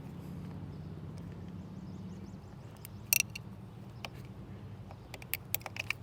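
Sharp plastic clicks of a screwdriver prying at the snap-on cover of a battery-terminal fuse block: one loud click about three seconds in, then a quick run of smaller clicks near the end, over a steady low hum.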